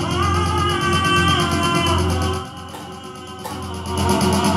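Music with a heavy bass line under a melody, played through a DIY 400-watt mono amplifier board with Toshiba 2SC5200/2SA1943 output transistors into PA speaker cabinets. It drops quieter for about a second midway and comes back louder near the end.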